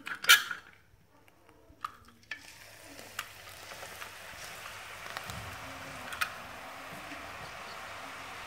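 A brief clatter at the start, then rice-flour murukku dough sizzling in hot oil in an aluminium kadai: the sizzle starts about two seconds in as the fresh dough strands go into the oil, builds, and then holds steady.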